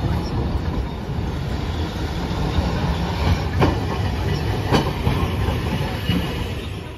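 Hiroshima Electric Railway streetcars rolling past close by: a steady low rumble of steel wheels on rail, with sharp clacks over the rail joints and crossings about three and a half and five seconds in. It fades a little near the end as the tram draws away.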